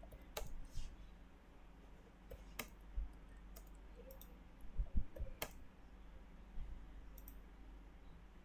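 A handful of sharp, irregularly spaced clicks from a computer mouse and keyboard as points are picked and a length is typed in a drafting program, over a low steady hum.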